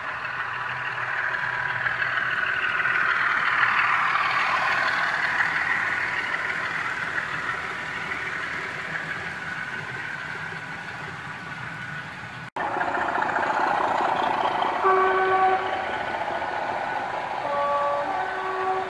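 Model railway trains running: a steady rolling rumble of wheels on track that swells as a train passes and then slowly fades. After a cut, a DCC sound-fitted model locomotive sounds its horn, a short two-tone blast and then a longer one near the end.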